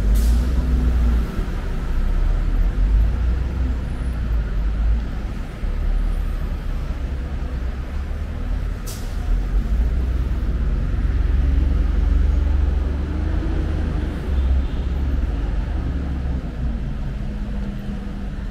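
Busy city street traffic: the low rumble of buses and cars running and passing, their engine pitch rising and falling. A short sharp hiss comes about nine seconds in.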